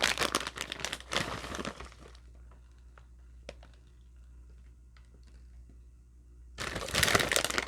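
Crinkling and rustling of food packaging while cheese is added to the sausage. The crinkling fills the first two seconds, a few faint clicks follow, and it starts again loudly near the end.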